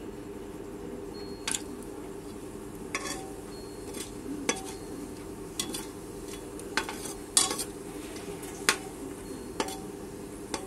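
Perforated metal spoon stirring whole spices in hot oil inside a Prestige pressure cooker, giving about ten sharp, irregularly spaced clinks against the pot over a steady low hum.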